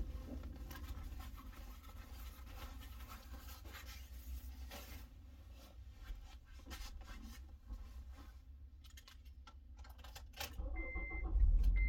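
Rustling and scraping of clothing and bedding, with light knocks, as someone climbs through a car's cabin to the driver's seat. Near the end a low rumble starts and a car's warning chime sounds two short high beeps.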